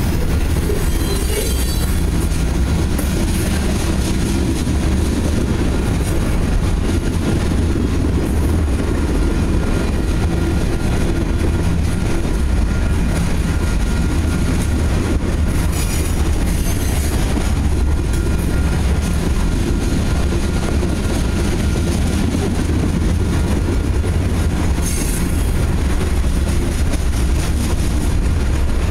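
Freight cars of a grain train rolling past with a steady, loud rumble of steel wheels on rail. Brief high-pitched wheel squeals come through a few times.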